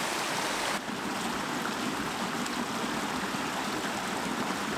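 Swollen mountain creek running fast over rocks: a steady rushing of water. The sound dips briefly about a second in, then carries on a little duller.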